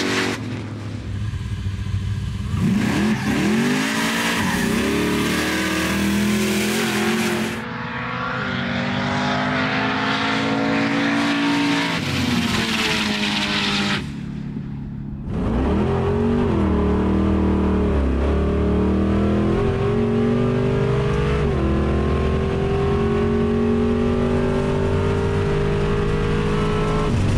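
Turbocharged LS3 V8 accelerating hard, its revs climbing and falling back at each upshift of the Turbo 400 automatic. The later part is heard from inside the cabin.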